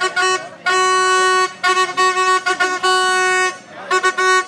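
A horn sounds a single steady note in a string of blasts, quick short toots mixed with several longer blasts of about a second each.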